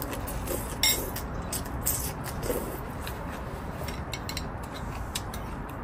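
Eating at the table: scattered light clicks of a spoon and chopsticks against ceramic bowls and sips of hot rice porridge, over a steady low rumble.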